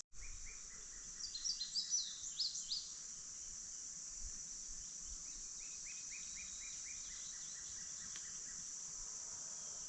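A steady high-pitched drone of insects in summer woods. About a second in, a bird gives a quick run of high chirps, and midway a lower run of evenly repeated notes follows.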